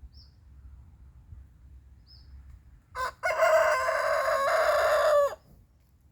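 Rooster crowing once, about three seconds in: a short first note, then a long held call of about two seconds that falls away at the end. Faint small-bird chirps sound before it.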